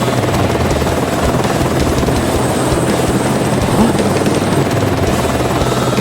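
Sound-effect rumble of a train running: a loud, dense, rapid clatter over a steady low hum.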